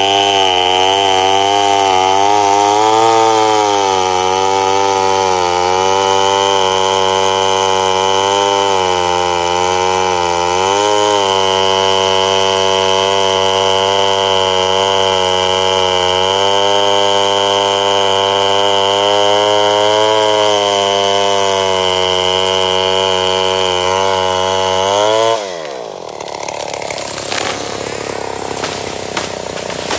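Chainsaw running at high revs for most of the time, its pitch wavering slightly as it cuts into wood. Near the end the engine speed drops sharply, and a quieter, rougher sound with scattered knocks follows.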